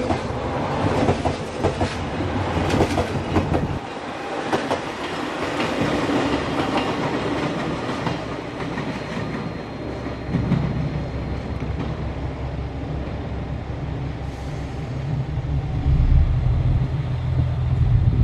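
JR Shikoku 2000 series diesel multiple unit moving off under power, its wheels clicking over rail joints and points in the first few seconds while its diesel engines run. The low engine sound strengthens about halfway through and is loudest near the end.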